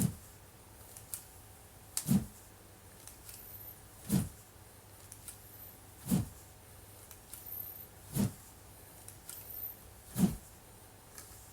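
Wooden practice sword (bokken) swung in repeated practice cuts: one short whoosh about every two seconds, six in all, with fainter clicks between the strokes.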